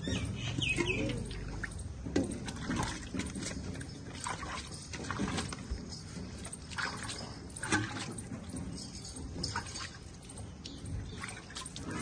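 Milk squirting in irregular spurts from a buffalo's teats as she is hand-milked, splattering onto the brick paving.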